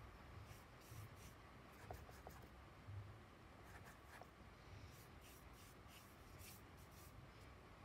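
Faint soft swishes of a watercolour brush stroking across heavy cartridge paper, with a few light clicks in between.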